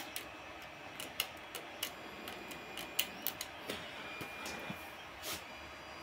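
Irregular small clicks and taps of a steel hex key and 3D-printed plastic parts being handled and fitted together, with a short scuff about five seconds in.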